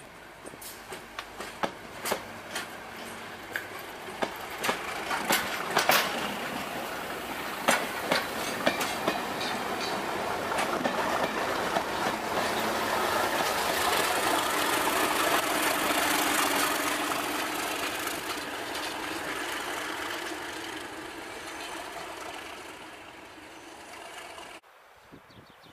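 Yellow test train passing close by at speed: sharp clicks of wheels over rail joints as it comes in, building to a loud steady rush of wheels on rail as the coaches pass, then dying away before the sound cuts off suddenly near the end.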